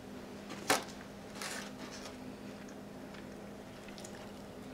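Metal cutlery clicks once sharply against a styrofoam takeout container as food is cut, followed by a softer brief scrape. A faint steady low hum runs underneath.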